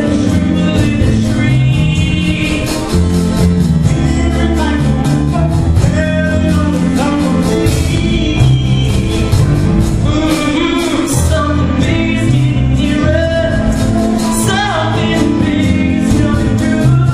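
Upbeat musical-theatre dance number played loudly over the hall's sound, with a steady driving beat and voices singing over it at times.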